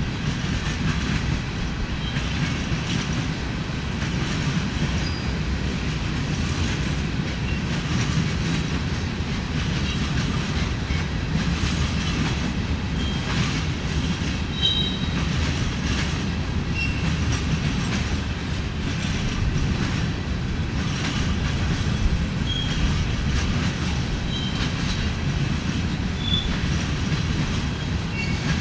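Empty rock hopper cars of a freight train rolling past: a steady rumble of steel wheels on rail with clickety-clack over the rail joints. Short high-pitched wheel squeals come now and then, more often in the second half.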